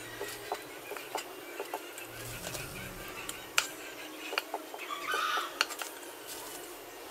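Kitchen knife chopping red chillies on a chopping board in scattered single strokes, with a chicken clucking briefly about five seconds in.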